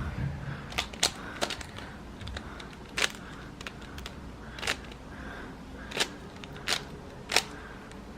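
A plastic Rubik's cube being twisted by hand, its layers snapping round in sharp, irregular clicks, about eight in all.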